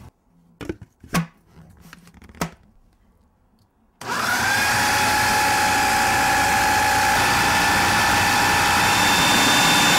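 A few light clicks, then about four seconds in an electric food processor switches on and runs steadily with a constant whine, pureeing peas and edamame into a paste.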